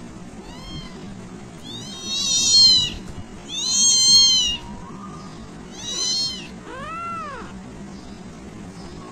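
Young kitten mewing: five high-pitched mews, each rising then falling in pitch, the two loudest about two and four seconds in, and the last one lower.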